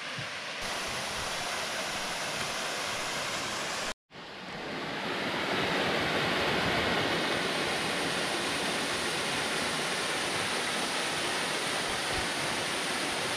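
Steady rush of a small waterfall spilling over rock into a pool, with a brief cut to silence about four seconds in.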